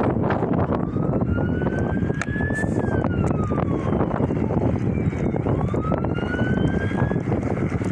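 Wind buffeting the microphone throughout, with a siren wailing: its pitch climbs for about two seconds, drops back, then climbs again near the end. A few sharp knocks come about two to three seconds in.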